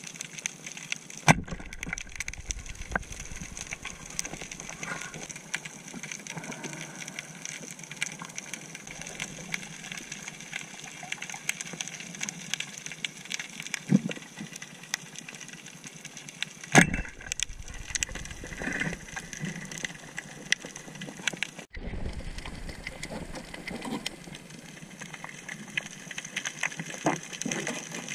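Underwater ambience picked up by a camera in its housing: a steady hiss with faint steady tones, dense crackling clicks, and a few louder knocks, the loudest about a second in and again about two-thirds through.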